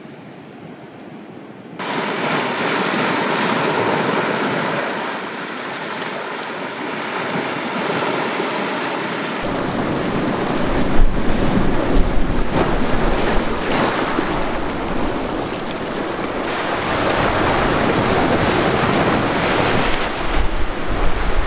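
Sea surf breaking and washing over jagged rocks, an even rushing noise that comes in suddenly about two seconds in after a quieter start. From about halfway, wind buffets the microphone with a low rumble, and a few waves hit hard.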